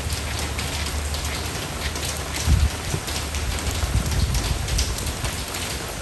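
Steady rain, an even hiss of many drops, with a brief low rumble about two and a half seconds in and another around four seconds.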